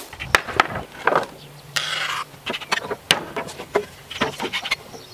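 Wooden pallet boards being handled and taken apart: a run of sharp wooden knocks and clatters, with a short scraping rasp about two seconds in.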